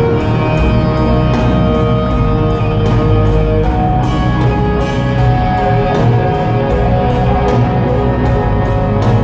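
Live rock band playing loud through a PA: electric guitars holding sustained notes over a steady beat of cymbal and drum hits.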